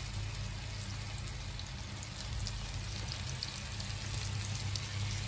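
Kebabs shallow-frying in a little oil: a steady sizzle with scattered small crackles, over a low steady hum.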